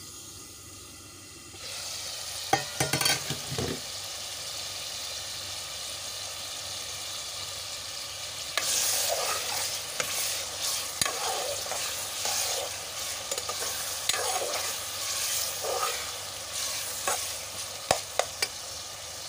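Chopped onions, tomatoes and green chillies sizzling in hot oil in a steel pot. A few clanks come about three seconds in, and from about halfway a metal ladle stirs and scrapes the pot, with a few sharp clinks near the end.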